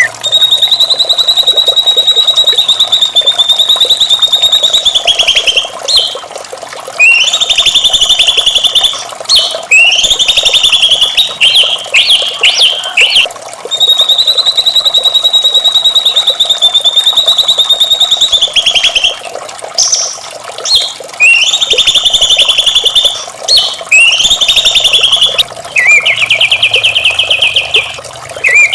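White-rumped shama singing: long, rapid trills held at a steady high pitch for about five seconds at a time, alternating with shorter, varied phrases. A steady sound of running water lies underneath.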